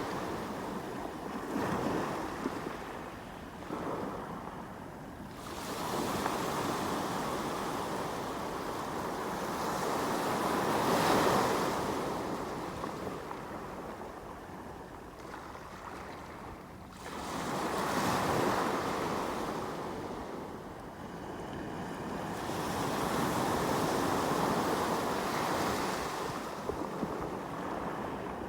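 Sea waves breaking and washing on the shore, coming in slow surges a few seconds apart that swell and fade.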